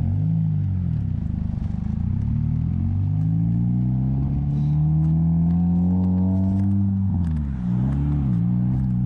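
Motor vehicle engine running and speeding up. Its pitch climbs steadily for several seconds, drops and wavers briefly about three-quarters of the way through, then settles higher again.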